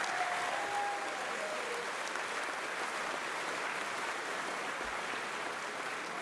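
Audience applauding steadily, with a brief shout over the clapping about a second in.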